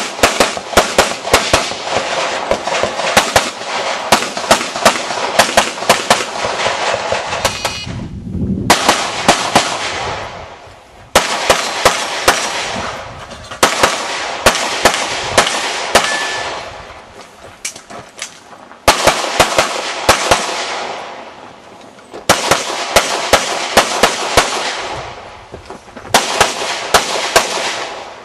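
Rapid strings of pistol shots, several a second, fired at targets on a practical shooting course. The firing comes in a run of short segments, each starting abruptly with a burst of shots and thinning out.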